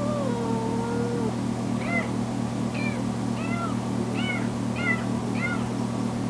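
Kitten meowing loudly: one long drawn-out meow falling in pitch, then a string of short meows about two a second. This is the distress crying of a kitten left alone in its crate.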